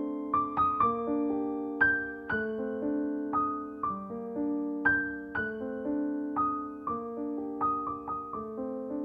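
Background piano music: a gentle melody of struck notes and chords, a new note or two about every half second, each left to ring and fade.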